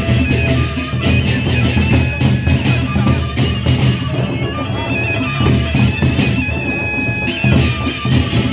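Gendang beleq ensemble playing: large Sasak barrel drums beaten with sticks in a driving rhythm, over fast, even cymbal clashes and ringing metal tones.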